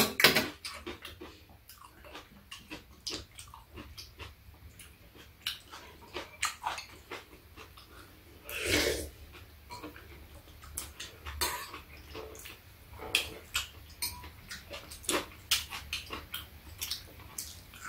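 Two people eating soup: metal spoons and chopsticks clicking against bowls, with chewing and slurping. A longer, louder slurp comes about nine seconds in.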